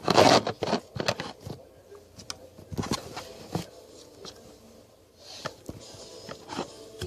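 Butter slime being squished and stretched by hand, giving a run of short sticky pops and squelches, loudest in the first half-second and then scattered.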